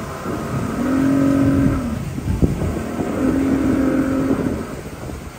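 Motorboat underway: steady engine and water noise, with two level pitched tones of about a second each, one about a second in and one about three seconds in.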